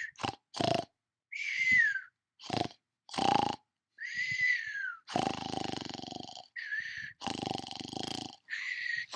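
Cartoon-style snoring: short snorts alternating with falling whistles, then two longer, heavier snores, each followed by a short whistle.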